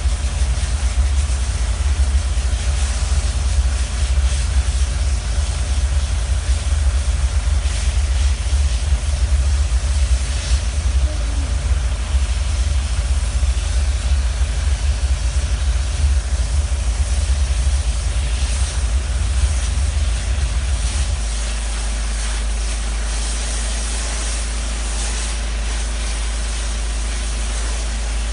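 DOFF steam cleaner lance hissing as it sprays steam onto roof tiles to lift moss, over the steady low drone of the machinery running. About three quarters of the way through, the low rumble drops slightly and evens out.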